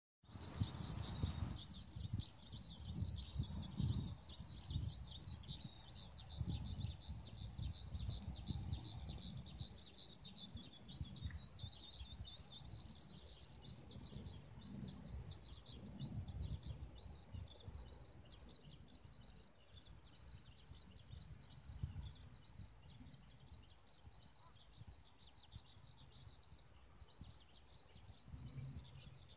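A dense, continuous chorus of rapid high chirps from many small calling animals, with an uneven low rumble of wind on the microphone.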